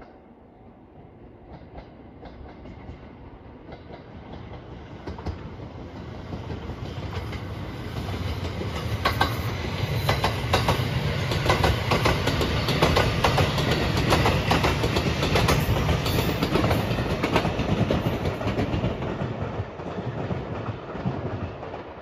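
Marine Liner rapid electric train approaching and passing close by: a rising rumble, then loud rhythmic clickety-clack of the wheels over the rail joints for about ten seconds, fading away near the end.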